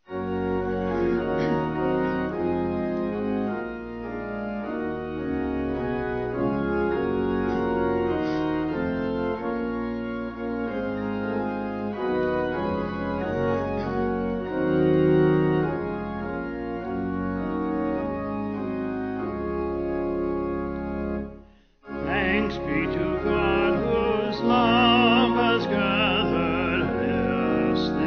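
Church organ playing the introduction to a hymn in steady held chords. It breaks off briefly about 21 s in, then starts again with a singing voice carrying the melody over it with vibrato.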